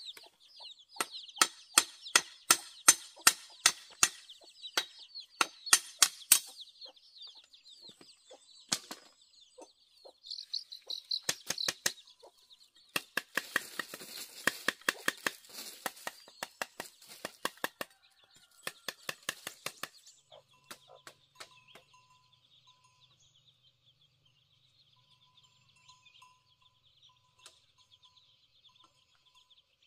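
Machete blade chopping bamboo: quick runs of sharp knocks, several a second, in two spells that stop after about 20 seconds. Faint high chirping runs underneath.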